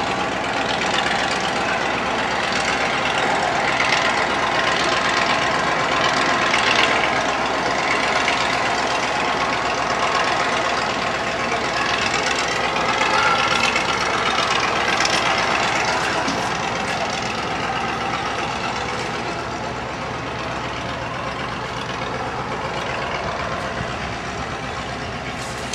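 Steady outdoor background noise of city traffic, an even rumble and hiss with no distinct events.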